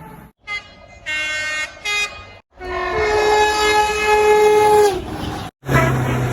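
Train horns sounding in a string of short, abruptly cut clips, each a steady chord of several notes. The longest blast lasts about two and a half seconds and starts about halfway through.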